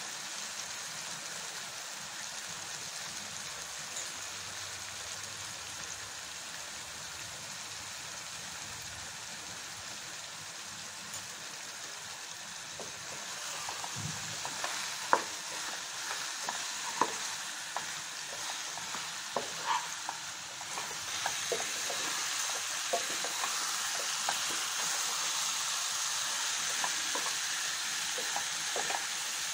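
Chicken with spice masala sizzling in a nonstick pan. About halfway, a wooden spatula begins stirring, knocking and scraping against the pan, and the sizzle grows louder near the end.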